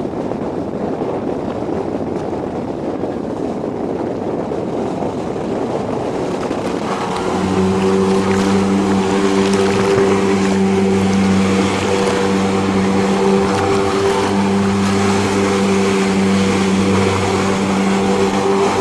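Wind on the microphone at first; about seven seconds in, a jet ski's engine comes up loud and runs steadily at one pitch as the craft circles on the water.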